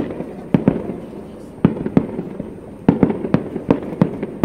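Aerial firework shells bursting over the bay: nine or ten sharp bangs at irregular intervals, each fading away over a moment.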